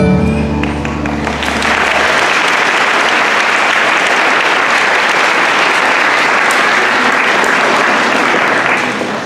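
Backing music ends in the first second or two, then an audience applauds with steady clapping that dies down near the end.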